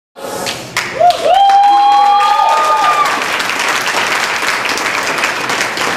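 Audience applauding, starting abruptly, with long shouted whoops rising over the clapping from about a second in.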